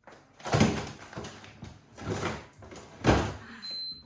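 Frozen packages and freezer drawers being put back into a refrigerator's freezer: a loud knock about half a second in, another around two seconds, and the loudest about three seconds in, with rustling between. Near the end the fridge's door-open alarm starts its high steady tone because the door has been left open a long time.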